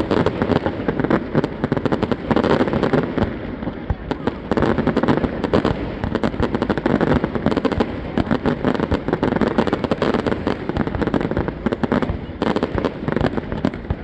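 Fireworks display in a dense barrage: rapid cracks and bangs, many a second without a break, over a continuous rumble.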